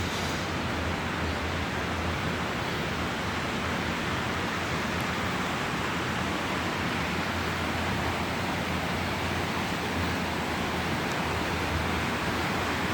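Steady rushing noise that holds one even level throughout, with no separate sounds standing out.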